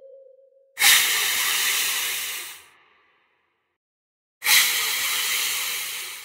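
Two bursts of hissing noise, each starting suddenly and then fading, separated by about two seconds of silence.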